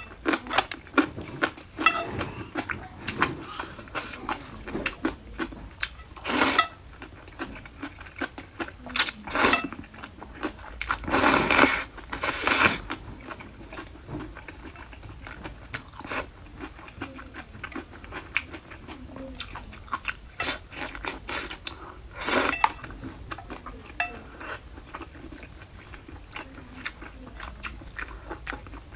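Close-up chewing and crunching of crisp pickled vegetables: many small crunches throughout, with a few longer, louder noisy bursts now and then.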